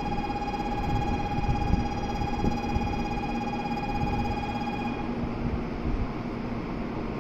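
A steady high electronic tone with several overtones over a low hum at a Shinkansen platform before a train departs. The tone cuts off abruptly about five seconds in, leaving the low hum and rumble.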